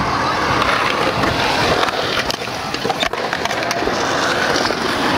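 Skateboard wheels rolling over a concrete skatepark bowl: a steady rolling rumble, with a couple of sharp clacks about two and three seconds in.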